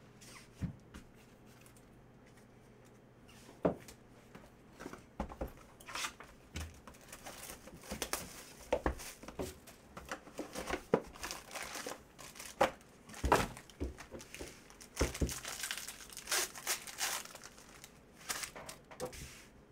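Foil packs of Panini Prizm football cards crinkling and tearing open by hand. A couple of clicks in the first few seconds, then a dense run of crinkles and rips.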